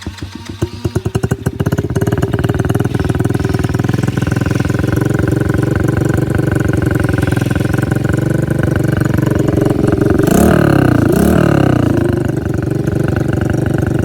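Engine running with its muffler removed, so the exhaust is open. It fires unevenly for the first second or so after starting, then settles into a steady idle, with two quick revs about ten and eleven seconds in.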